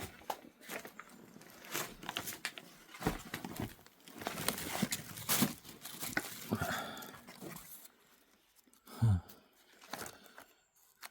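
Old papers and documents being handled and leafed through: sheets rustling and crinkling with many small sharp crackles. A brief low sound falls in pitch about nine seconds in.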